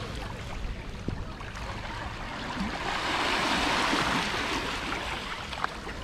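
Small sea waves washing at the edge of a pebbly beach, one wash swelling louder and fading away about three to four and a half seconds in.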